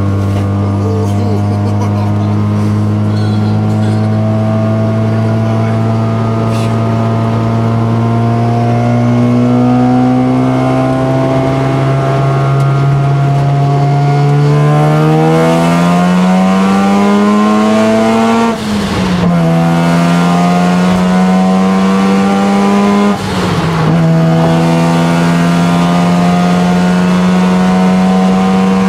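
Mazda RX-7 FD3S's single-turbo 13B rotary engine pulling hard under load, heard from inside the cabin. Its pitch climbs slowly at first, then faster. About two-thirds of the way in it shifts up, with a brief drop in sound and a fall in pitch, and about four seconds later it shifts up again, each time picking up and climbing once more.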